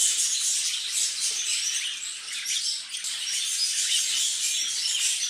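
Small cage birds chirping and chattering, many short high calls overlapping without a break.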